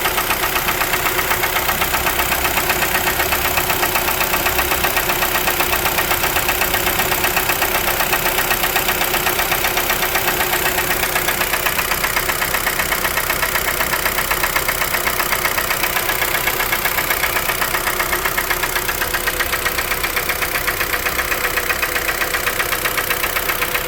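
2012 Kia Forte's 2.0L four-cylinder engine running steadily with a fast, even knock on every turn: piston slap from a worn engine.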